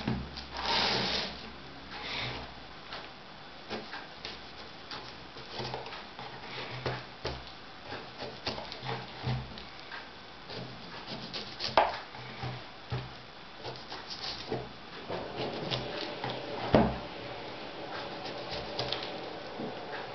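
Kitchen knife cutting the rind off a whole pineapple on a wooden cutting board: irregular crunching scrapes of the blade through the tough skin, with two sharper knocks against the board, about halfway and near three-quarters through.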